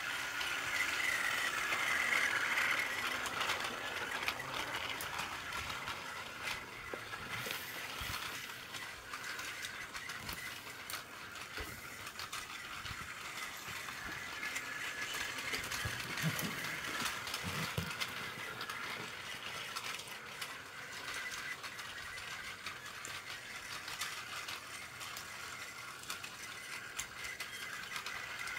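Battery-powered Plarail toy train running on plastic track: a steady motor whine with rattling and clicking of the wheels and coupled cars over the track joints. It is louder as the train passes close, about two seconds in and again near the end.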